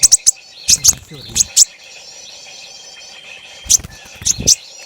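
Loud, sharp chirps from a freshly trapped konin bird, in quick clusters of two or three, with low thumps and rustles under some of them, over a faint steady chorus of insects and other birds.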